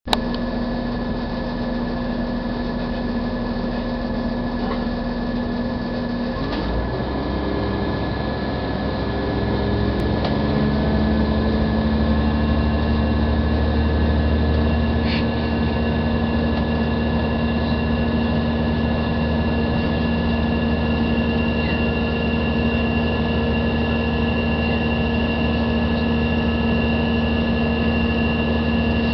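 Passenger train carriage interior running noise: a steady low hum with a few steady tones over rumble. About six seconds in, the drone steps up in pitch in several stages and grows a little louder as the train's engine note rises, then holds steady.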